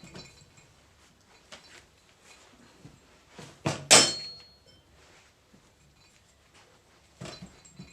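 Metal parts and tools being handled on a workbench during the reassembly of a hydraulic control valve: scattered light clicks, and one loud metal clank about four seconds in that rings briefly.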